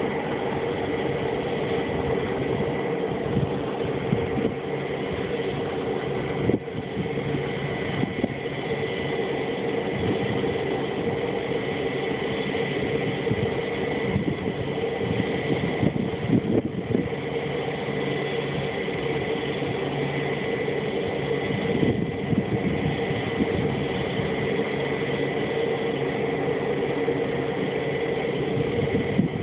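T-34C Turbo Mentor's PT6A turboprop running steadily at idle: a constant high turbine whine over a lower steady drone, with irregular low buffeting of wind on the microphone.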